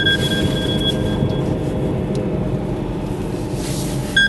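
Steady engine and road noise inside a BMW M3's cabin while a mobile phone rings with a two-tone electronic ring, once at the start for about a second and again just before the end.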